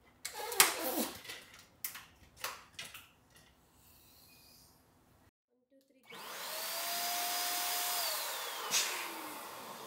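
Electric balloon pump inflating a latex balloon: it starts about six seconds in and runs with a steady whine over a rush of air. The whine falls in pitch near the end, with a sharp click just before the end. Light knocks come in the first few seconds.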